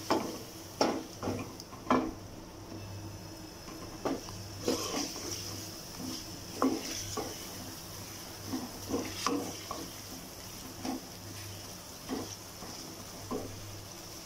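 Marinated chicken pieces frying in oil in a steel kadhai, turned with a black spatula. Irregular knocks and scrapes of the spatula against the pan sound over a steady sizzle.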